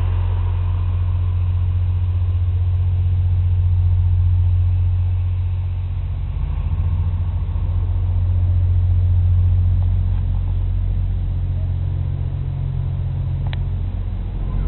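Inland tanker ship's diesel engine running as a steady low drone, the ship moving slowly. A brief click sounds near the end.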